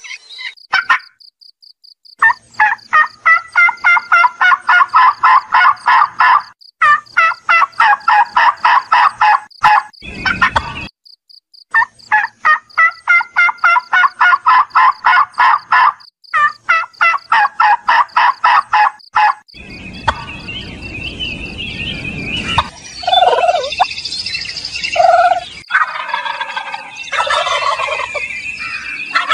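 Domestic turkey gobbling: four long runs of rapid, rattling calls with short breaks between them. These give way near the end to a low rushing noise and a few shorter calls.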